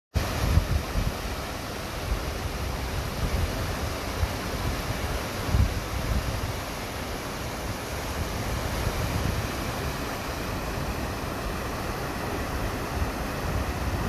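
Water pouring over a low weir in a steady rushing splash into the churning pool below, with wind buffeting the microphone in low irregular rumbles.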